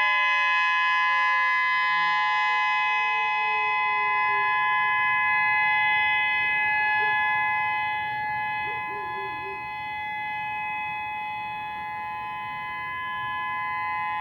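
Whelen 3016 electronic outdoor warning siren sounding a steady alert tone: a chord of several high pitches held without a break, dipping slightly in loudness near the middle. A lower tone slides steadily down in pitch over the first five seconds.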